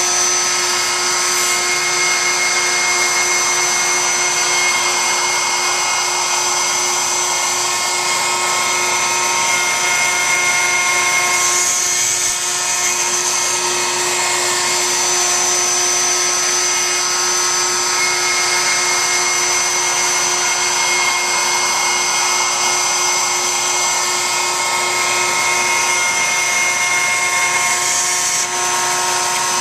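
CNC router spindle cutting wood, a steady whine over the noise of the cut, as the bit mills away the waste around a male inlay piece.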